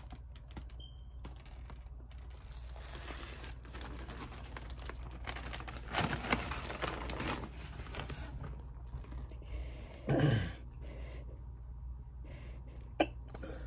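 Rustling and handling noise as a plastic mailer bag and the phone are moved about, with scratchy crinkling stretches, over a steady low hum. A brief louder sound comes about ten seconds in.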